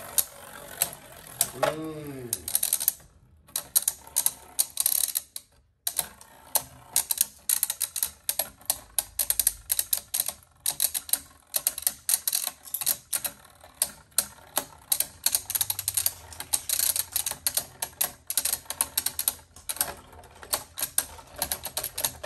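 Two Beyblade Burst tops, Cyclone Belial and Viper Fafnir, spinning and clashing in a plastic stadium. They make a fast, irregular run of sharp clicks and knocks, with two brief breaks in the first six seconds.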